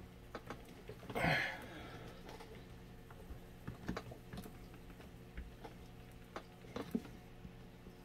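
Small clicks and taps of fingers handling a plastic box-fan housing and pressing its wires into their clips, with a brief scrape about a second in, over a faint steady hum.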